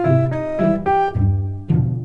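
Instrumental background music: short picked or keyboard-like notes over a bass line, a new note every third to half a second.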